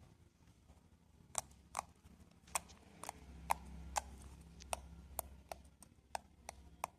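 Homemade slime and its container being handled, giving sharp, irregular small clicks and taps, with a low rumble swelling in the middle.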